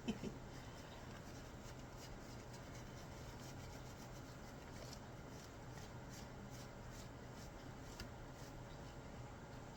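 Faint rubbing and soft scratching of hands working loose clumps of fur out of a cat's coat, over a steady low hum.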